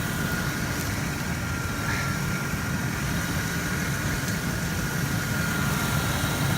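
A vehicle engine idling steadily, with a faint steady high whine over it that fades near the end.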